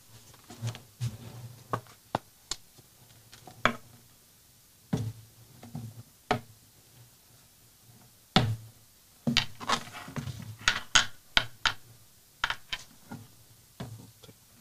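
Handling noises at a wooden lectern close to the microphone: irregular knocks, taps and clicks as things are set down and arranged on it, coming thicker about two thirds of the way in.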